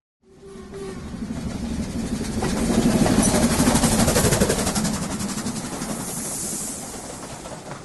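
A train passing: a rumble with rapid wheel clatter that swells to its loudest about three to four seconds in, then slowly fades.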